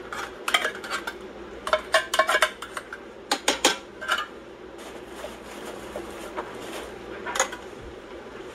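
A metal spoon scraping and clinking against an opened tuna can and a stainless steel pot while tuna is spooned onto macaroni. Repeated sharp clinks and scrapes come over the first four seconds, fainter ones follow, and there is one more clink near the end.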